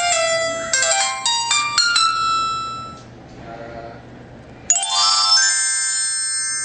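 Clone iPhone's speaker playing its power-on jingle: a quick run of short, bright electronic notes in two phrases that fades out about two seconds in. About five seconds in, a second electronic chime of several notes starts suddenly and rings on.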